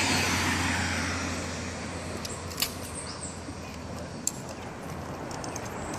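A car passing close by on the road, its engine and tyre noise loudest at the start and fading away over the next few seconds. Two light clicks come later.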